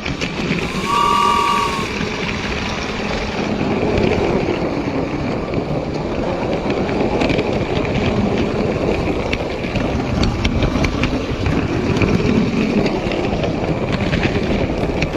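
Train running with a continuous rumbling clatter and many small clicks, and a short horn toot about a second in.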